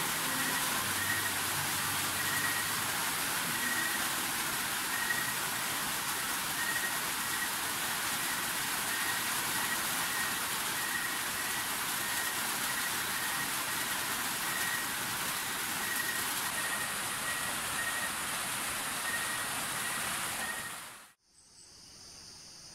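Heavy rain pouring down in a steady hiss, with a faint high chirp repeating about every three-quarters of a second. The rain cuts off suddenly near the end.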